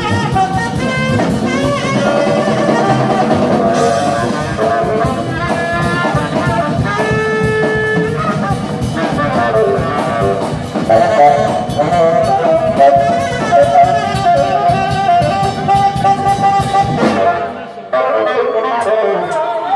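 Live funk band with a horn section of saxophones and trumpets playing over drum kit and bass. Near the end the drums and bass drop out for a moment, leaving the horns.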